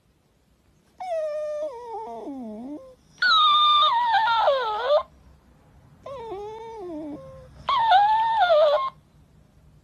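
Shiba Inu whining in four drawn-out, wavering calls that slide down in pitch, each lasting one to two seconds.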